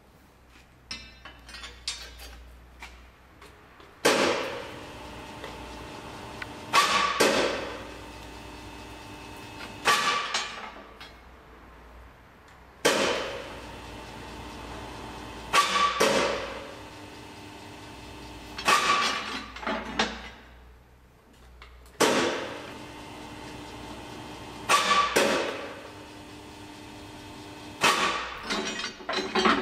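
Triax PFTX30 combined rebar cutter-bender bending a 14 mm steel bar into a stirrup: the motor and gearbox run steadily, broken by loud metallic clanks about every three seconds, some in quick pairs, with a ringing of steel as the plate bends the bar and swings back.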